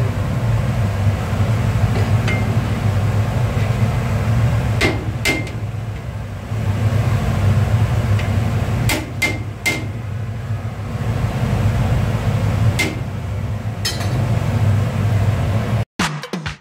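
A steel ladle knocks against a large aluminium biryani pot now and then, each knock ringing briefly, over a steady low hum. The sound cuts out near the end.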